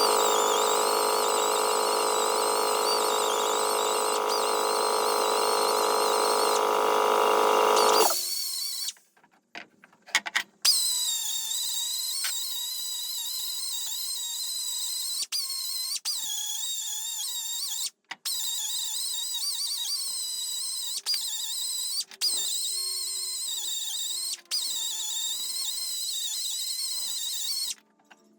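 Whine of a small electric power tool's motor: a steady, dense whine for about eight seconds, then a thinner high-pitched whine whose pitch wavers up and down, breaking off briefly several times.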